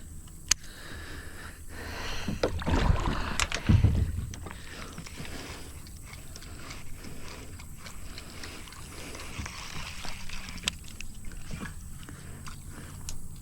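Water splashing and sloshing at a kayak for a couple of seconds, starting about two seconds in, over a low steady background, with a few sharp clicks.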